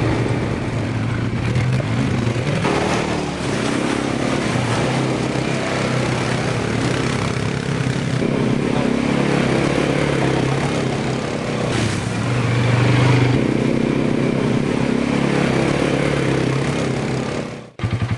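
Automatic ATV (four-wheeler) engine running as it is ridden, a steady hum that swells louder about thirteen seconds in. The sound cuts off suddenly near the end.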